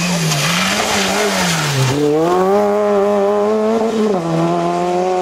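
Fiat Cinquecento rally car driven flat out: the engine revs dip twice as the driver lifts off, then climb hard and hold, with an upshift that drops them sharply about four seconds in. Tyres hiss on the wet road during the first two seconds.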